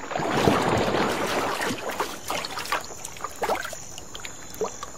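Water splashing as a splash tetra flicks its body at the surface to throw water onto its eggs on an overhanging leaf. The splash comes in the first two seconds, followed by scattered drips and small plops of water falling back.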